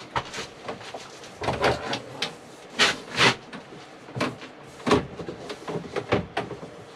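Irregular knocks and bumps with handling rustle, as a person moves about inside a camper van's interior. The loudest knocks come about three seconds in and again about five seconds in.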